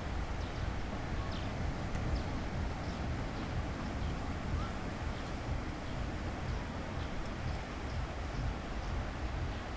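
Steady wash of sea surf with a low wind rumble on the microphone, with faint short ticks and chirps scattered over it.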